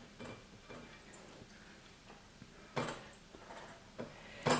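A metal kitchen utensil scraping and clinking against a tilted frying pan and a metal sieve as fried bacon is tipped out: a few separate sharp clinks, faint at first and loudest just before the end.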